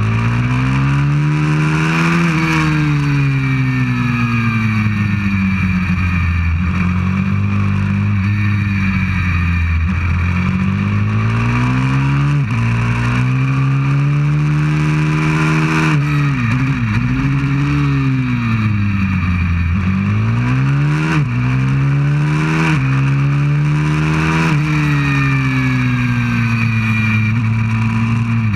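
190cc pit bike's single-cylinder four-stroke engine running hard around a track, its pitch climbing under acceleration and falling off into corners again and again, with a sudden drop at each of several gear changes.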